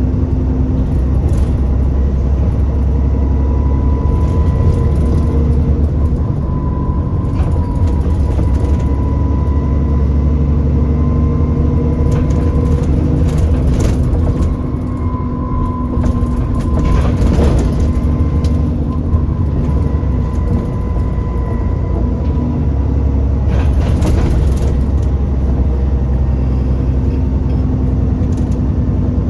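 Alexander Dennis Enviro400 Trident double-decker bus running, a steady low engine and road rumble with a thin whine. Short knocks and rattles come and go throughout, the knocking sound the bus is noted for.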